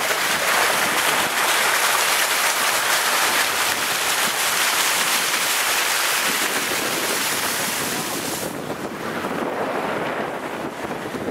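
A Ford Falcon's tyres ploughing through floodwater on the road, a steady rushing hiss of spray. About eight and a half seconds in, the hiss thins out and drops a little.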